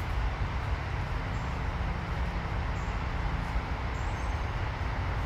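Steady outdoor background noise: a constant low rumble with a hiss over it. No deer calls stand out.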